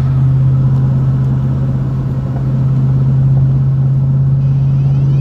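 Truck driving at road speed, heard inside the cab: a steady low engine drone over tyre and road rumble. Faint rising whistle-like tones come in near the end.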